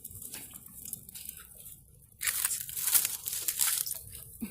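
Campfire crackling in a dense run of small snaps and pops, with a short lull about halfway through.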